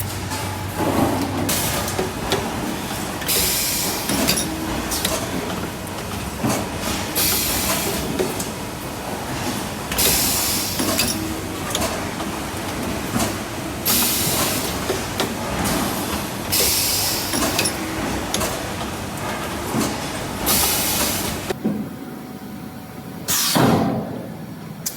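Machinery on a stainless steel sink production line running, with a loud hissing burst every three to four seconds. It drops quieter about twenty-two seconds in, then gives one more sharp hissing burst.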